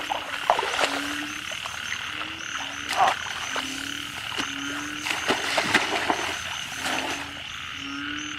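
Frogs croaking: short low calls repeat about once a second over a steady higher-pitched trilling chorus, with a few sharp knocks scattered through.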